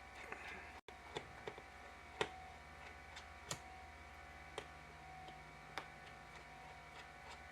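Scattered light clicks and taps, about six spread irregularly over several seconds, from a small precision screwdriver and tiny screws while the brackets holding a MacBook Pro's LVDS display cable are removed. A faint steady hum runs underneath.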